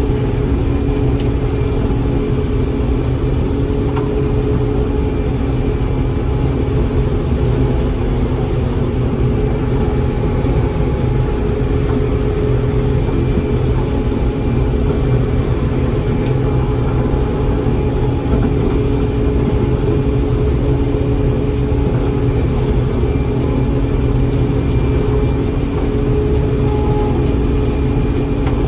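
John Deere 4400 combine running steadily: a loud, constant drone of engine and machinery that holds one pitch throughout.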